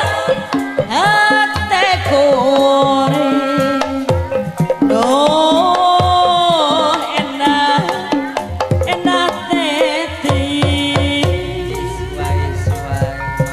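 Live Sundanese jaipongan music: a woman singer's ornamented, wavering vocal line over busy hand-drum (kendang) patterns and gamelan accompaniment.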